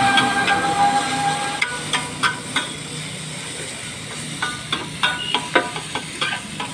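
Steel spatula chopping and scraping on a hot iron tawa as the aloo tikki and chilli pakoras are mashed together: a run of sharp metallic clinks, several a second, thickest in the second half. A steady high tone runs through the first second and a half.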